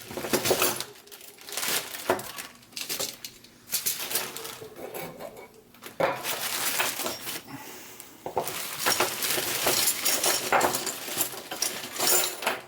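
Small steel parts from a machine gun kit clinking and rattling against each other and a hard surface as they are handled, in many short irregular clicks, busier in the second half.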